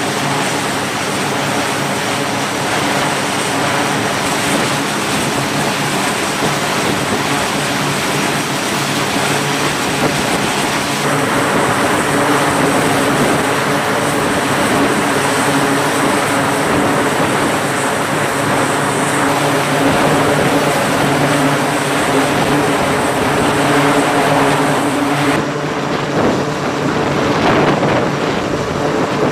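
Turboprop engines of a C-2A Greyhound running steadily: a set of steady whining tones over a dense rush of noise. The sound shifts abruptly about 11 seconds in and again near 25 seconds in.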